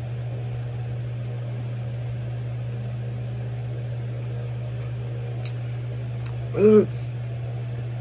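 Steady low mechanical hum of room background, like a fan or air conditioner. It carries a couple of faint clicks and one short vocal sound about two-thirds of the way through.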